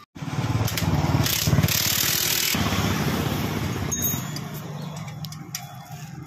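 A motor vehicle engine running close by, loudest over the first few seconds and then fading, with a few light clicks near the end.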